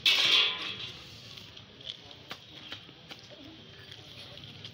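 A brief loud call right at the start, then tomatoes being picked from a heap and set into a plastic basket, making scattered light knocks every half second or so.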